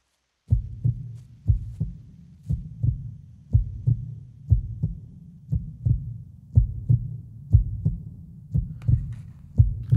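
A heartbeat sound effect: pairs of low thumps repeating about once a second over a low rumble, starting half a second in. Faint clicks join near the end.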